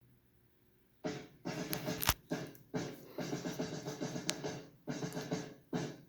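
Music starting about a second in, choppy and stop-start, breaking off and coming back every half second or so.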